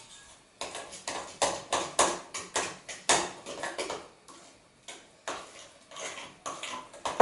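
Cake batter being beaten by hand in a glass mixing bowl, the utensil knocking and scraping against the glass in quick strokes, about three a second, then slowing and growing sparser after about four seconds.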